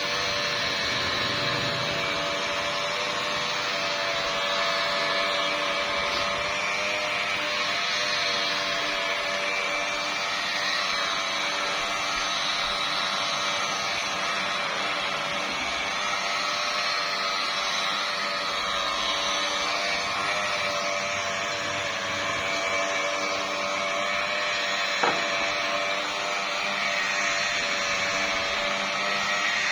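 Electric car polisher running steadily at its lowest speed setting, its pad buffing polishing compound across a painted car hood. A single sharp click comes near the end.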